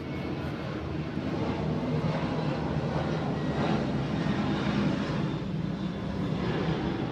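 An aircraft flying over, a steady engine rumble that grows louder toward the middle and eases off near the end.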